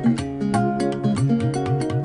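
Background music of quick plucked guitar notes over held chords.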